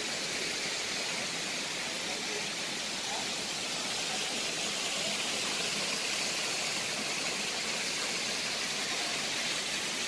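Small waterfall cascading over layered rock ledges, making a steady rushing hiss.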